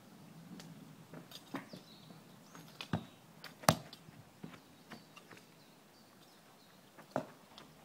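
Outdoor garden ambience: scattered sharp knocks and clicks, the loudest about halfway through, with a few faint bird chirps.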